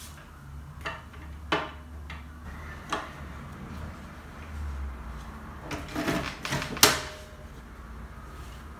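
Small notebook pages and covers being handled and fitted into a desktop binding punch machine: a scattering of light knocks and clicks with paper rustle, the sharpest knock about seven seconds in.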